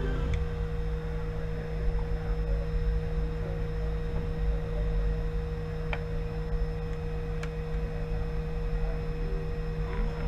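A steady hum with a fainter high whine over a low rumble, and a few faint clicks about six and seven and a half seconds in.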